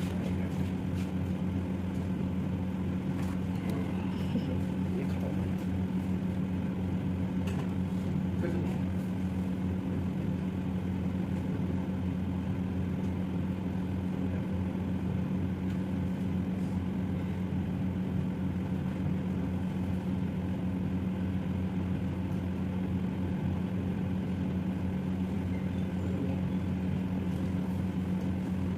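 Steady low machine hum that never varies, with a few faint clicks in the first third.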